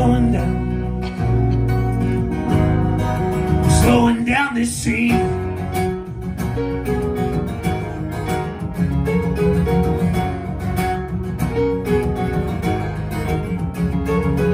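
Live acoustic band playing: a steadily strummed acoustic guitar with a bowed fiddle.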